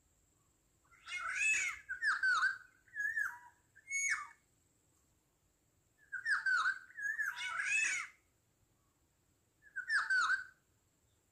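Black-naped orioles (kepodang) calling in three bouts of short, harsh calls, each call a note that drops in pitch.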